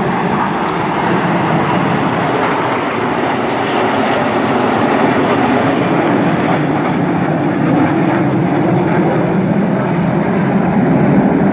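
Nine BAE Hawk T1 jets of the Red Arrows flying over in close formation: steady jet engine noise, growing a little louder toward the end.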